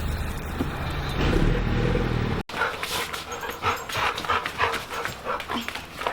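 A steady low rumble like a running car cuts off abruptly about two and a half seconds in. A dog follows, panting and moving about close to the microphone.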